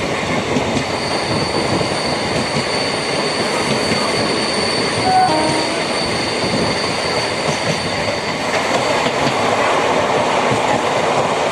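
MEMU electric passenger train running along the track with a steady rumble and rail noise. A steady high-pitched squeal of wheels against the rails runs from about a second in until about eight seconds in.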